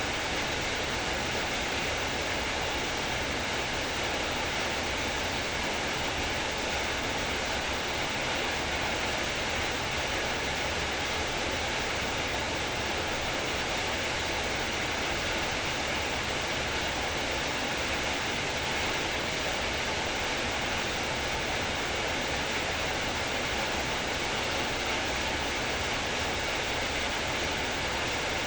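Heavy rain falling, a steady, even hiss without breaks.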